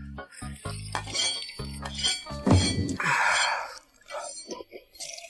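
Wooden chopsticks clicking against a porcelain bowl as rice porridge is shovelled and slurped from the rim, with a longer, louder slurp about two and a half seconds in. Background music with a steady beat plays throughout.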